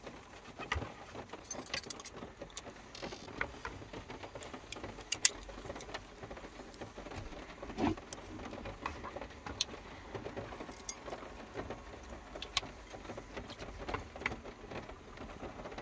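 Ceramic bowls and plates being washed up and handled by hand, giving scattered clinks and knocks, over a steady hiss of heavy rain on the van roof.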